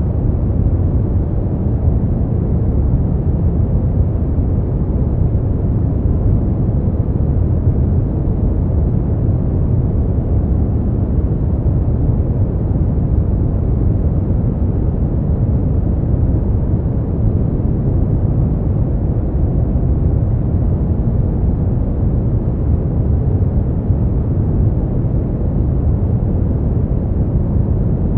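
Steady brown noise: an even, deep rumbling hiss, strongest in the low end and fading toward the highs, with no changes or events.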